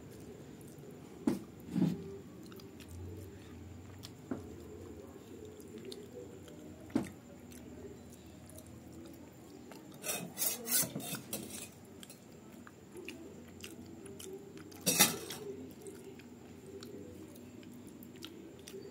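Eating by hand from a stainless steel plate, with occasional small clicks of fingers and rice against the metal. About ten seconds in, a metal spoon scrapes and clinks several times inside a steel tin as curry gravy is ladled out, and a single sharper metal clink comes near fifteen seconds in.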